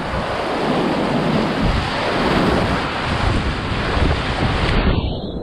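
Rushing river whitewater, a loud steady hiss, with wind buffeting the microphone in low thumps. About five seconds in the high part of the hiss cuts off abruptly, leaving a duller rumble.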